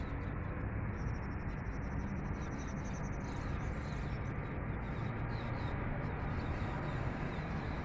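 Small birds chirping: a rapid high trill about a second in, then short chirps repeating, over a steady background rumble.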